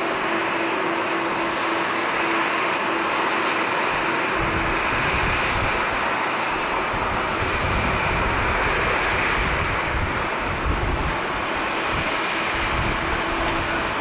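Twin-engine jet airliner landing and rolling out on the runway: a steady jet engine roar with a held tone, joined about four seconds in by a heavy, uneven low rumble that lasts through the rollout.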